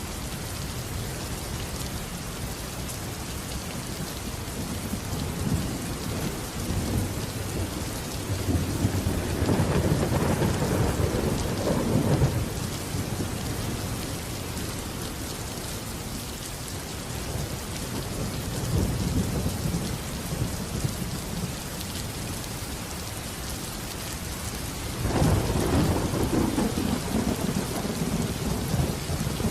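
Steady heavy rain with rolls of thunder: a long rumble about nine seconds in that ends abruptly near twelve seconds, a softer one around nineteen seconds, and another starting about twenty-five seconds in.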